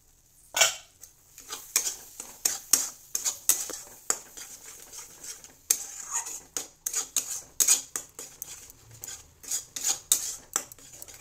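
Flat steel spatula scraping and clinking against an aluminium kadai while stirring and frying a thick ground masala paste. The strokes are irregular and sharp, starting about half a second in.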